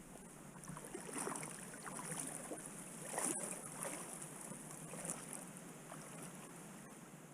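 Faint steady rush of flowing river water, with a few soft handling noises and one sharp click about three seconds in.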